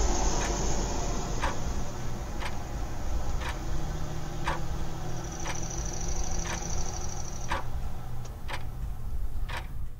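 Regular ticks, about one a second, over a low steady drone and hiss, with a brief high tone in the middle; it begins to fade at the very end.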